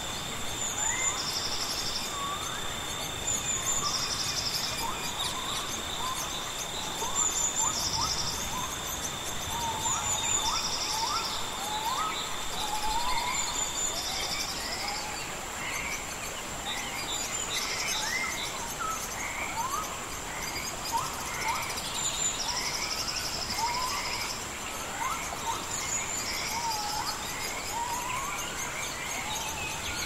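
Rainforest ambience: many birds giving short rising whistled calls, an insect buzzing in short pulses every second or two, and steady high-pitched insect drones, one of which stops about halfway through.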